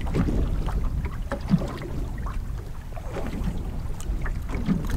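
Wind buffeting the microphone over open water: a steady low rumble, with a few faint clicks and rustles of hands working a lure out of a weed-tangled fish.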